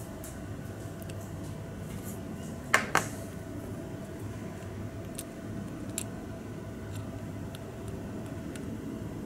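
Metal tweezers clicking against small plastic model-kit parts: two sharp clicks close together about three seconds in, then a few faint ticks, over a steady low background hum.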